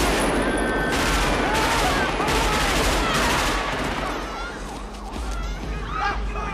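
Sustained automatic rifle fire, dense and echoing, in a film gunfight. About four seconds in it thins out, and rising and falling siren-like wails take over.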